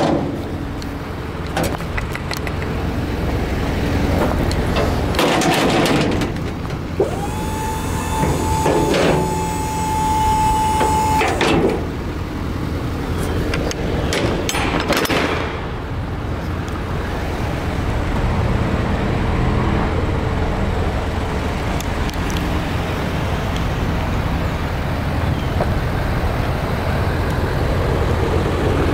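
A box truck's aluminum tuckaway liftgate being worked. Its hydraulic pump motor whines at one steady pitch for about four seconds, and there are metal clanks and rattles from the platform and its handle, over a steady low rumble.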